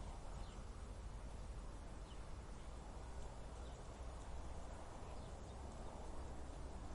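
Steady desert wind: an even rushing with a low rumble underneath, and a few faint short high chirps scattered through it.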